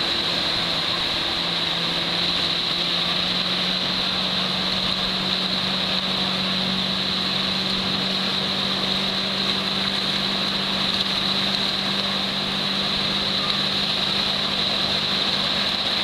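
Small ocean waves breaking and washing at the shoreline, a steady unbroken wash, with a faint steady low hum underneath.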